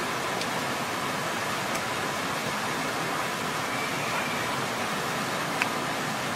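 Steady rushing of a stream flowing over rocks, an even unbroken wash of water noise, with a sharp click about five and a half seconds in.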